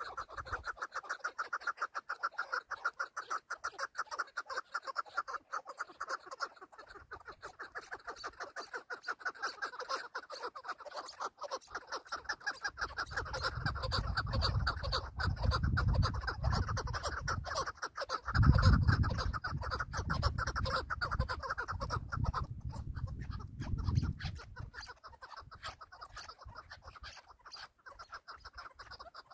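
Chukar partridge calling on and on in a fast run of clucking notes, thinning out near the end. A low rumble comes and goes through the middle.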